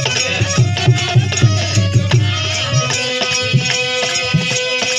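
Instrumental break in a Bhojpuri folk song: a quick, steady hand-drum beat under held melody notes, with no singing.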